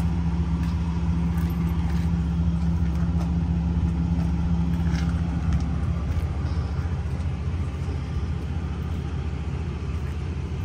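Truck engine idling: a steady low hum that eases slightly about halfway through.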